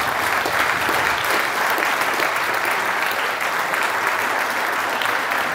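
Seated audience applauding, many hands clapping at a steady level.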